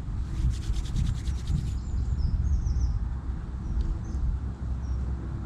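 Steady low wind rumble on the microphone. Near the start comes a quick series of about a dozen rasping strokes, roughly eight a second, lasting a second and a half. Small birds chirp faintly at a high pitch.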